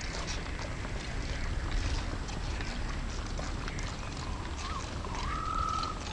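Outdoor ambience: a steady low rumble of wind on the microphone with scattered light taps and knocks. Near the end comes a brief whistle-like tone that rises and then holds.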